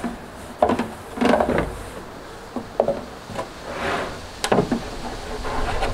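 Hollow knocks and rubbing from an empty 55-gallon plastic drum being shifted and handled, a handful of separate knocks spread over a few seconds.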